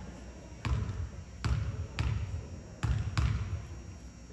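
Basketball bouncing on a gym floor: five sharp thuds at uneven spacing.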